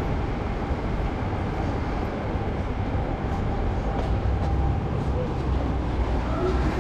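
City street ambience: a steady low rumble of traffic with a general hiss of street noise, the rumble growing a little stronger near the end.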